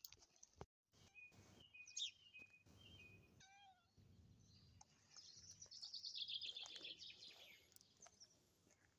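Faint birds chirping: a few thin, steady, high whistled notes, then about five seconds in a rapid trill of short notes falling in pitch, the loudest sound here.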